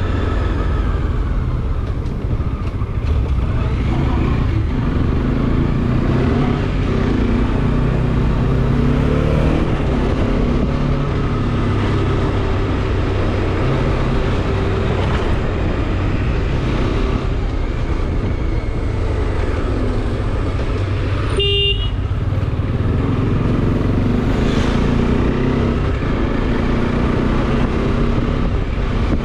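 Bajaj Dominar 400 single-cylinder engine running on the move, its pitch rising and falling with throttle and gear changes. A vehicle horn toots once, briefly, about two-thirds of the way through.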